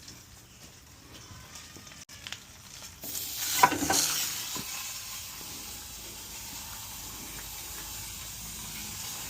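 Hot flat-top griddle sizzling as liquid hits the heated steel during seasoning: it starts suddenly about three seconds in, flares loudest for a moment, then settles into a steady sizzle.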